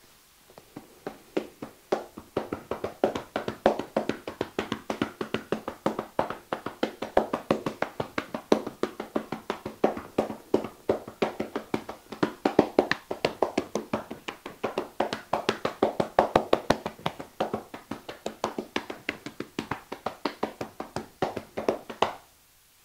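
Hands striking the body in a fast percussive massage (tapotement): quick, evenly paced slaps and taps, about five or six a second, stopping suddenly near the end.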